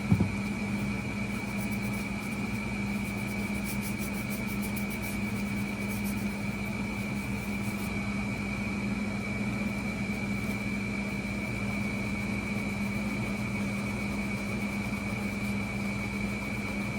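Air conditioner running with a steady hum and a constant high whine.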